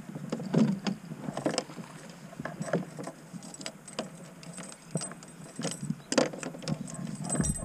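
Irregular light clicks and knocks, some with a faint high metallic ring, from fishing gear being handled aboard a kayak.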